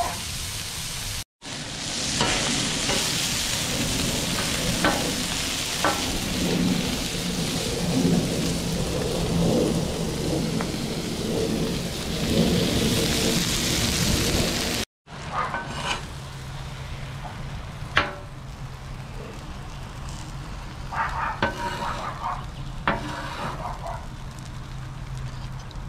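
Food sizzling on a flat-top griddle, with scattered clicks and scrapes of stirring. The sizzle is loud up to an abrupt cut about fifteen seconds in; after the cut it is quieter, over a steady low hum.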